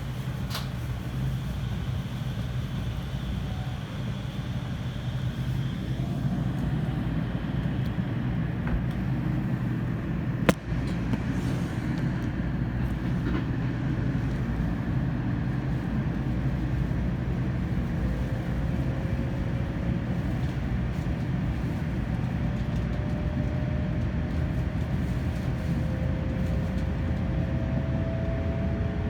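Running sound heard inside the cabin of an N700 series 8000 Shinkansen train: a steady low rumble, with one sharp click about a third of the way through. In the last third a faint whine slowly rises in pitch.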